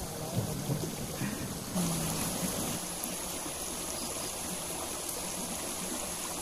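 Shallow creek water trickling steadily over a rocky bed.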